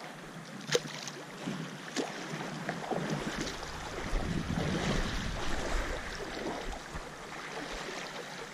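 Water splashing and lapping in the stony shallows as a hooked lake trout is drawn in to shore, with wind buffeting the microphone. A few sharp clicks or knocks, the loudest about a second in.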